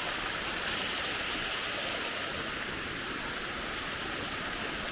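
Water falling and running over rocks at a small waterfall, a steady even rush with a hissy top.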